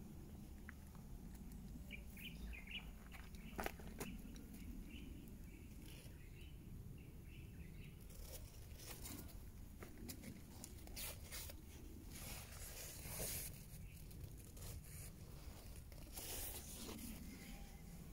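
Faint rustling and crunching, as of steps on a dry soil-and-straw path and leaves brushing past, coming in short bursts, over a low steady rumble. A few faint bird chirps about two to three seconds in.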